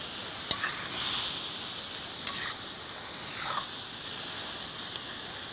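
Squid, fish and vegetables in tomato frying hard in a cast-iron kazan: a steady high sizzling hiss, with a few faint scrapes of the ladle stirring the pot.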